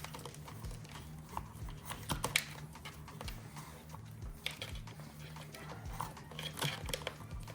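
Irregular light clicks and knocks from plastic parts and wiring being handled as a tail-light wiring harness is wiggled through the rear fender of a dirt bike, over a steady low hum.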